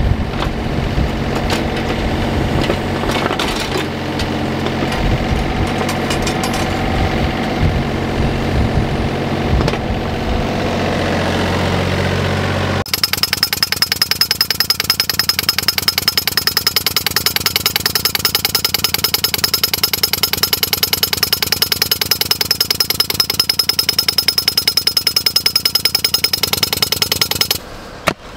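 Yanmar mini excavator's diesel engine running while the bucket works the soil, with irregular knocks. About thirteen seconds in this gives way abruptly to a pneumatic moling tool hammering rapidly and evenly as it drives a tunnel through the ground for the water pipe, stopping near the end.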